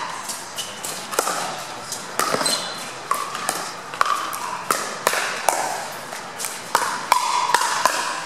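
Pickleball paddles striking a hard plastic ball in a rally at the net: a string of sharp, hollow pocks about once or twice a second, several with a short ring after them.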